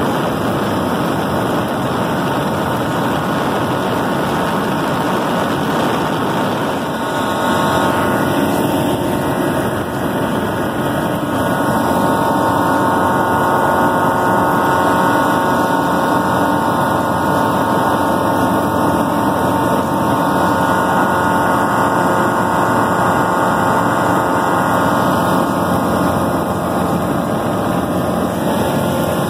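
Small propeller plane's engine and propeller running steadily under a loud rush of wind, heard from the cockpit. The sound swells slightly, with a few steady tones coming in, about seven seconds in.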